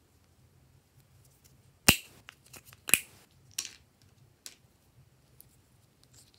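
Plastic lids of two small Vaseline pots snapping open: two sharp clicks about a second apart, then a few lighter clicks as the plastic pots are handled.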